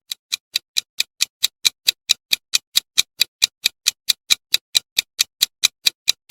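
Quiz countdown-timer sound effect: a rapid, even clock-like ticking, about four to five ticks a second, counting down the guessing time.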